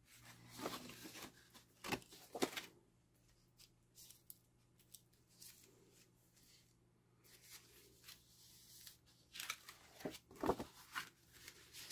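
Paper and cardstock handled by hand on a cutting mat: faint rustles and slides in short bits during the first couple of seconds and again near the end, with a quiet stretch between.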